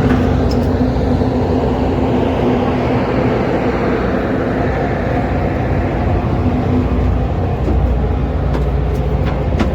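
Passenger ferry's engines running, a steady low rumble with a constant hum.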